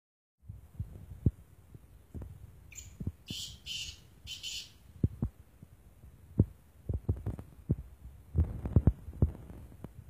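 Caged francolin (teetar) giving a harsh call of four short, scratchy notes about three seconds in, against repeated low thumps and knocks that are the loudest sounds.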